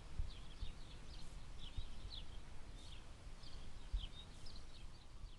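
Small birds chirping over and over in the background, short high chirps throughout, with a few faint low knocks underneath.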